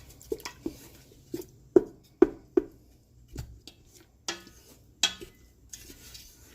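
A spoon stirring sauce in a cooking pot, knocking and scraping against the pot in a string of irregular sharp taps, with one short ringing clank about four seconds in.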